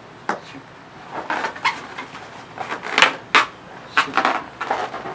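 Inflated latex twisting balloons handled and shifted in the hand, rubbing and squeaking against each other in a run of short, irregular strokes, grouped in a few clusters.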